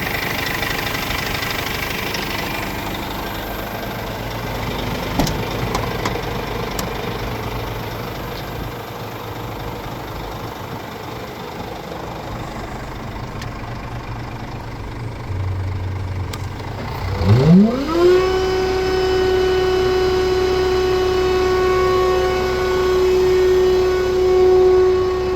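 Scania R410 truck's diesel engine running steadily at idle. About two-thirds of the way in, a whine rises quickly in pitch and then holds at one steady pitch to the end.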